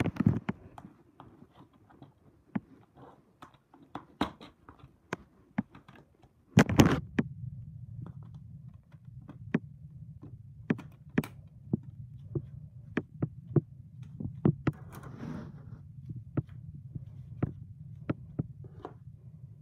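Plastic DVD case being handled: scattered clicks and taps as it is picked up and opened, with one louder knock about seven seconds in, then clicks as the disc is pressed off the case's centre hub. A steady low hum runs underneath from the louder knock onward.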